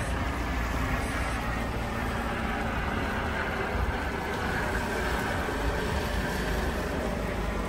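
Steady wind rumbling on the microphone over a continuous wash of noise, with no clear rhythm or single event standing out.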